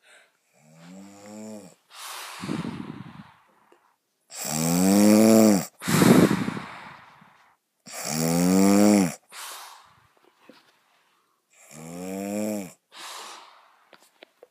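A woman snoring in deep sleep: four snore cycles about three and a half seconds apart, each a low buzzing snore followed by a breathy rush of air.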